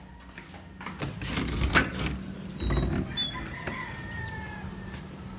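A door's knob latch clicks and the door is opened, with the sharpest click a little under two seconds in and a dull thump about a second later. After that, faint bird chirps come in from outside.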